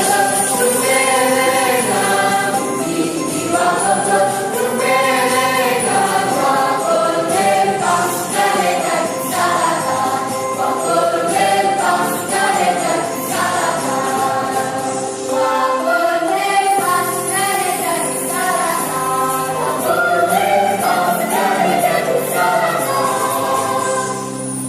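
A choir singing with instrumental accompaniment and a jingling percussion shimmer.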